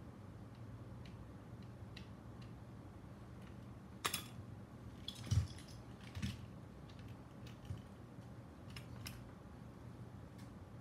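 Light clicks and dull knocks of a plastic circuit-board holder being handled and the drone board being turned in it: a sharp click about four seconds in, two soft knocks shortly after, then scattered small clicks. A faint steady low hum runs underneath.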